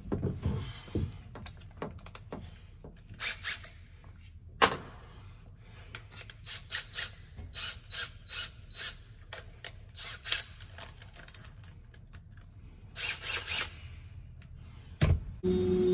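Irregular clicks, knocks and rattles of hand tools being handled and set up. Near the end a power drill starts up with a steady hum.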